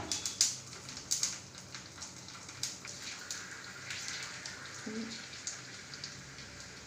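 Pani puri pellets deep-frying in hot oil: a steady sizzle with many sharp crackles and pops, thickest in the first second and a half.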